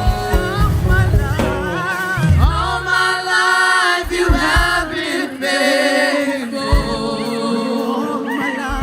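Live church worship music: several voices singing together over a band. A kick drum beats steadily for the first two seconds or so, then drops to occasional hits.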